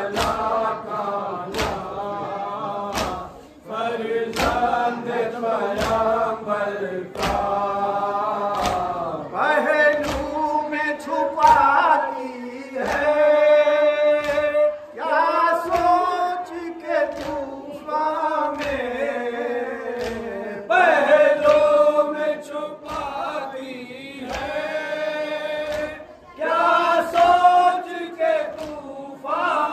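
A nauha, the Shia Muharram lament, chanted by a group of men in unison, with steady chest-beating (matam) strikes keeping the beat about three times every two seconds.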